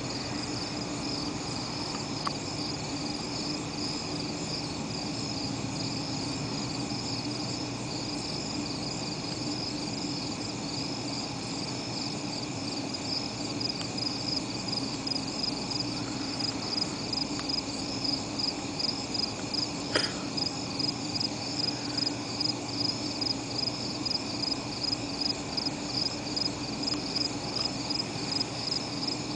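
Night insects chirping in a steady, high, shimmering chorus. From about halfway through, a louder call pulses about twice a second. There is one sharp click about two-thirds of the way in.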